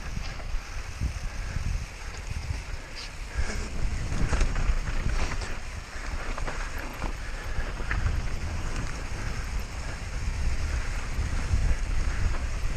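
Wind rushing over the microphone of a mountain bike moving fast downhill, buffeting low and steady, with scattered clicks and rattles from the bike and tyres on rough ground.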